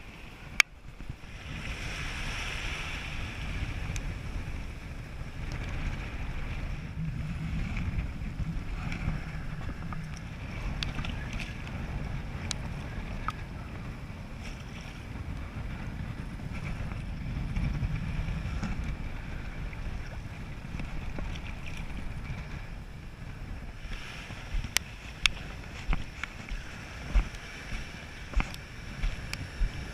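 Wind buffeting the microphone as a steady low rumble, with surf washing in behind it. Near the end come a string of sharp clicks.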